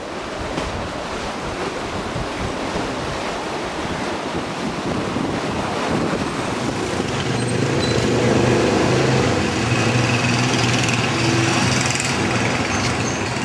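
A steady rushing outdoor noise, then from about halfway street traffic: the small engines of motorized tricycles and motorcycles running and passing close by, growing louder.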